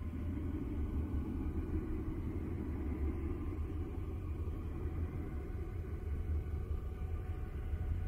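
Steady low rumbling noise for sleep, a deep even drone with a softer hiss above it and faint steady tones higher up, unchanging throughout.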